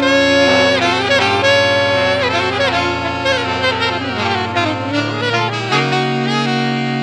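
Instrumental music: a lead melody with slides in pitch over held bass notes, the bass moving to a new note near the end.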